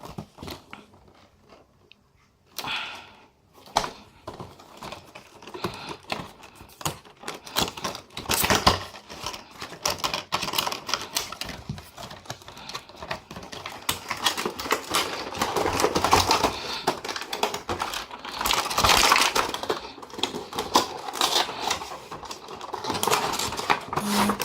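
Cardboard and plastic packaging of a headphone box being opened and handled: a dense run of rapid clicks, crinkles and rustles that starts a couple of seconds in and grows busier.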